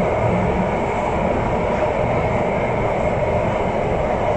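Cabin noise of an Alstom Metropolis C751A metro train running through a tunnel: a steady, even rumble of wheels on rail and rushing air, with no change in pace.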